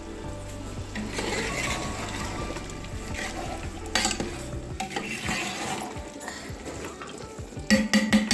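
Metal ladle stirring and scraping through a large aluminium pot of mutton masala cooking over a wood fire, with a few sharp clinks of the ladle against the pot near the end.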